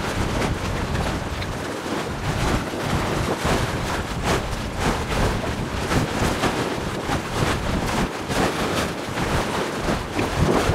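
Gusty wind buffeting the microphone in irregular blasts with a deep rumble, over the wash of choppy sea water.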